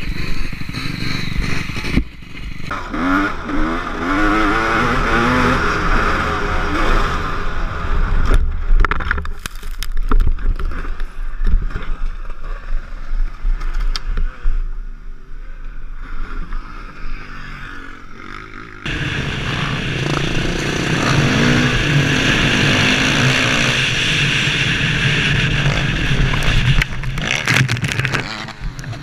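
Dirt bike engines heard from onboard cameras, revving up and down. About a third of the way through comes a run of sharp knocks and scrapes from a crash. From about two-thirds through, a bike runs steadily at high revs.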